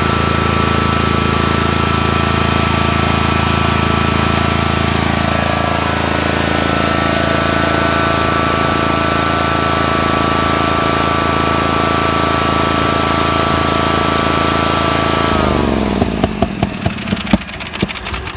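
A Kawasaki 19 hp twin-cylinder mower engine runs steadily, then about 15 seconds in its speed falls away and it dies within a couple of seconds with a few last chuffs. This happens as a spark plug wire is pulled from the one cylinder that is firing. The stall shows the other cylinder is not firing, which the owner puts down to a bad spark plug or a failing ignition coil.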